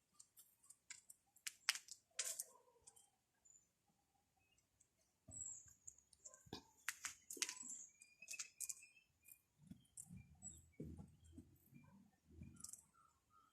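Quiet outdoor quiet with faint scattered clicks and rustling, and a few short, faint bird chirps.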